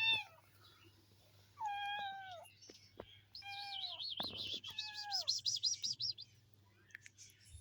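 A kitten meowing three times in high, thin calls that dip slightly in pitch at the end. A fast, high warbling chirp runs alongside the second and third meows.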